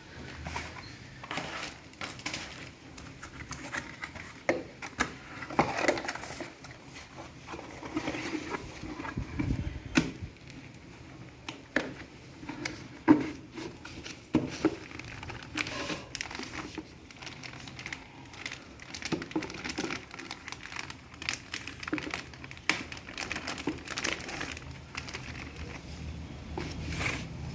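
Hands handling computer parts and packaging: irregular clicks, taps and crinkling, with one sharp click about halfway through.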